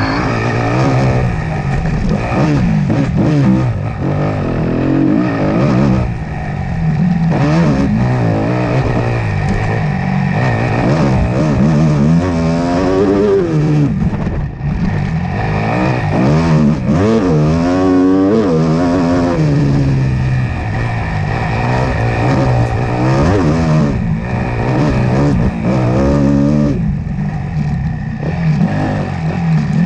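A racing engine running hard for a whole lap stretch, its revs rising and falling over and over as it accelerates, shifts and lets off.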